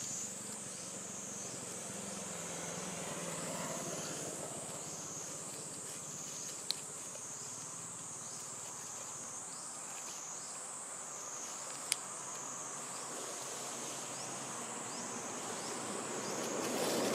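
Insects droning continuously at a high pitch, the tone wavering slightly, with two sharp clicks about five seconds apart. Near the end a lower buzzing sound grows louder.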